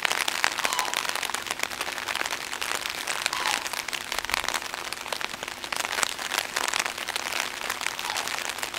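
Rain falling, a dense, even patter of many small drops hitting a nearby surface.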